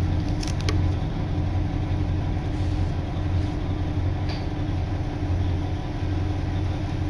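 Diesel railcar heard from inside the cabin as it runs slowly toward a station: a steady low engine hum with a steady tone above it. A few faint clicks come in the first second, and a brief faint squeak about four seconds in.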